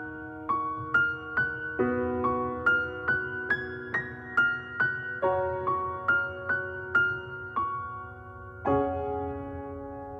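Background music: a slow piano introduction to a pop ballad, single notes over sustained chords, before the singing comes in.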